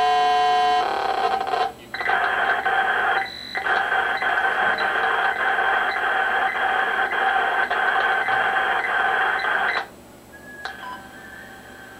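Digital image data coming in over a SINCGARS FM radio as modem-like data tones: a steady chord of tones for about a second, then after a short gap about eight seconds of dense, even data tones with a brief dropout, cutting off suddenly near the end as the picture finishes transferring.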